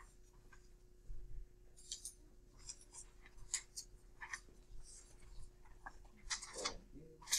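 Faint, scattered rustling and scratching of paper and pencils as worksheets are written on and handed over, with a steady low hum underneath.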